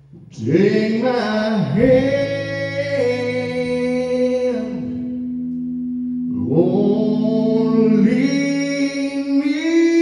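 Male vocalist singing a country song live into a microphone, holding long drawn-out notes in two phrases with a short break about halfway through, over acoustic guitar.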